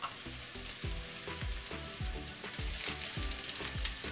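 Stuffed bitter gourds shallow-frying in a little hot oil in a pan, the oil sizzling and crackling steadily. A low, regular thump comes about three times a second underneath.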